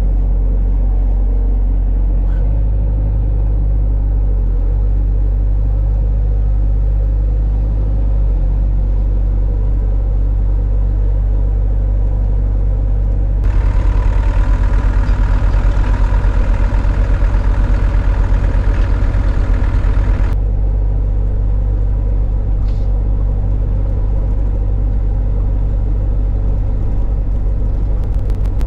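Diesel engine of a Cat 307SSR mini excavator running steadily, with a louder, harsher stretch in the middle lasting about seven seconds, as the engine works harder.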